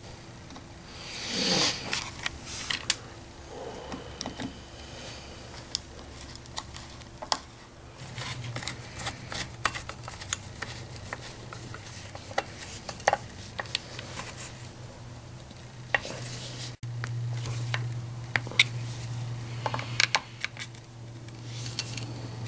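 Screwdriver and small metal parts clicking, tapping and scraping as screws on the ignition parts of a Remington SL-11 chainsaw are worked, with scattered sharp clicks throughout. A steady low hum sets in partway through and grows stronger later on.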